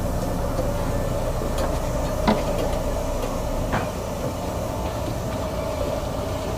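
Steady machinery hum with a low rumble and a constant mid-pitched tone, broken by two sharp knocks, about two seconds in and again near the four-second mark.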